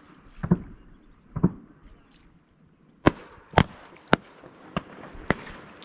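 Shotgun shots, about seven sharp reports in quick, irregular succession, the first two with a heavier low boom.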